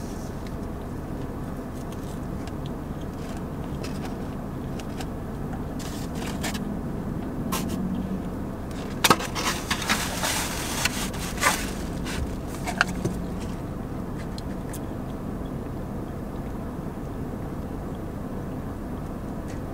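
Close-miked chewing and mouth noises from eating a fried chicken finger, with a cluster of sharp smacks and crunches about halfway through, over a steady low hum.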